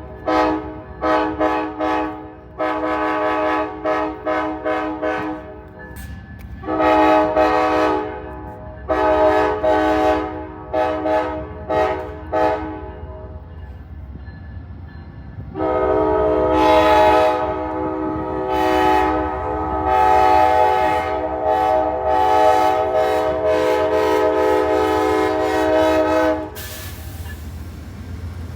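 Locomotive multi-chime air horn sounding a chord: a string of short and medium blasts, then one long blast of about ten seconds that cuts off suddenly near the end. A low rumble from the train runs underneath.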